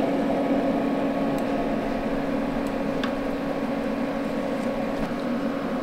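Steady hum and fan-like whir of a kitchen appliance running, with a few faint taps of a wooden spoon stirring melted beeswax in an enamel pot.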